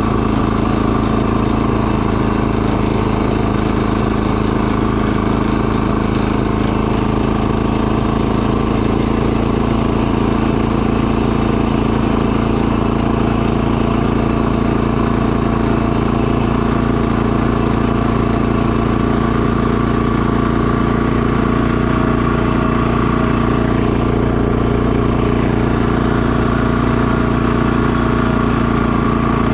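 Two-stage snowblower's gas engine running at a steady speed while the machine clears snow.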